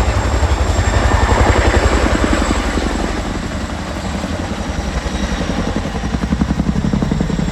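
Boeing Chinook HC.6 tandem-rotor helicopter flying close by, its twin rotors beating in a fast, even thudding rhythm. The sound swells louder about a second in and eases off slightly midway.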